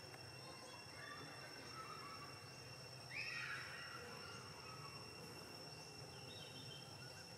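Steady high-pitched insect drone, like crickets or cicadas, in a faint forest ambience. About three seconds in, a brief louder sound stands out for about half a second.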